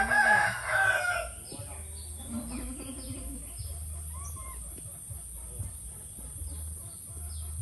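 A rooster crows once, one long pitched call that ends about a second and a half in, over short high bird chirps that repeat throughout.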